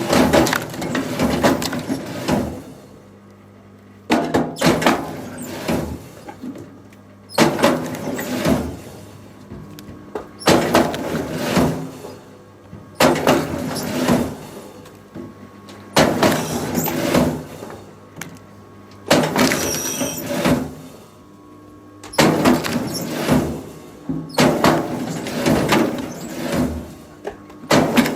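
Repeated loud bursts of wood cracking and machine noise, one about every three seconds, each lasting around two seconds, with quieter gaps between them.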